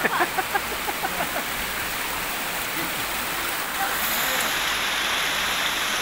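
Steady rush of a waterfall and the stream running over rocks below it, growing slightly louder about four seconds in. A few voices are heard in the first second or so.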